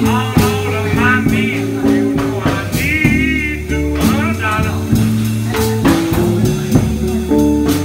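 Live blues band playing: two electric guitars and a drum kit. A low, repeating guitar riff runs under high lead notes that bend and waver.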